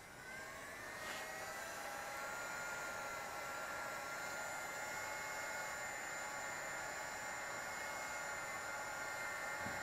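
Chicago Electric heat gun switched on and blowing hot air onto a freshly applied tire letter. Its motor spins up over about the first second with a rising whine, then runs steadily with an airy hiss and a steady whine.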